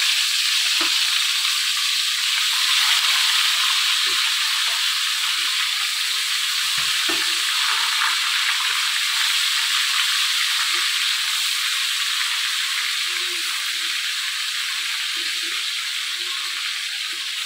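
Masala-marinated chicken pieces sizzling in hot oil in a kadai: a steady frying hiss that eases slightly over time, with a few faint soft knocks as more pieces go into the pan.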